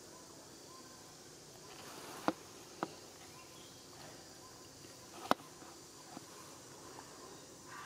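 Steady background drone of insects, broken by three sharp clicks: two about half a second apart a little over two seconds in, and a louder one about five seconds in.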